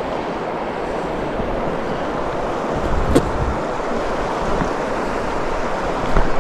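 Steady rushing of water over a rocky river, with wind buffeting the microphone and a single sharp knock about three seconds in.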